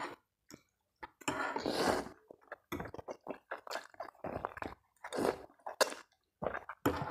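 A man eating mie ayam chicken noodles close to the microphone: a long slurp of noodles about a second in is the loudest sound, followed by a run of short, wet chewing and slurping sounds.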